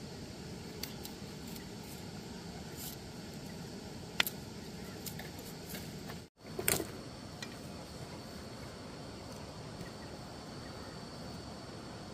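Occasional light clicks and taps of thin bamboo strips being handled and knocked together, over steady outdoor background noise. The sound drops out for an instant about six seconds in, followed by a short cluster of louder taps.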